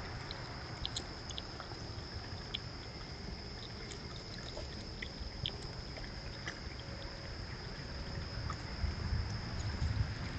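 Small scattered clicks and crackles of a skunk and a raccoon foraging in spilled birdseed and hulls, over a steady hiss and a thin, steady high-pitched tone. A low rumble grows louder near the end.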